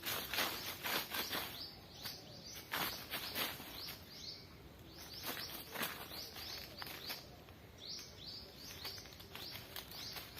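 Small birds chirping in runs of short, quick notes that fall in pitch, over a background of outdoor noise. Several brief, louder hissing bursts come in the first few seconds.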